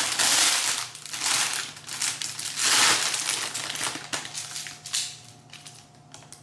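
Plastic wrapping crinkling and rustling as it is handled, in several loud bursts over the first four seconds, then a few light clicks as it dies down.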